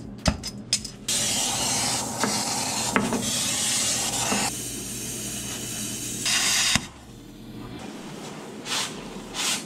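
Gas cutting torch with a steady hissing flame, cutting metal, after a few sharp metal clicks. The hiss cuts off sharply near seven seconds, leaving fainter hissing surges.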